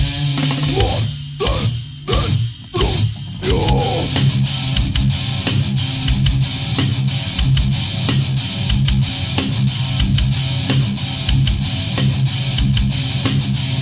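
Heavy death-crust metal: distorted electric guitar riff with drum kit. About a second in, the band drops out into a short break of sliding guitar notes, then the full band comes back in with drums hitting about twice a second under the sustained guitar.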